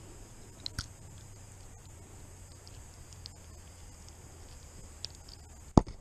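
Quiet handling noise as a small caught bream is held in the hand: a few faint clicks and rustles over a low steady hum, then one sharp knock near the end.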